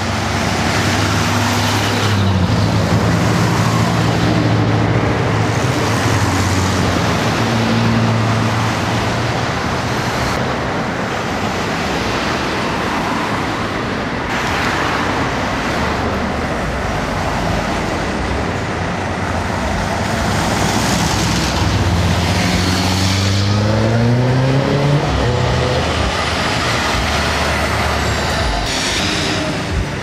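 Street traffic: car and truck engines running and passing close by. One vehicle's engine rises in pitch as it accelerates, from about two-thirds of the way in, and then fades.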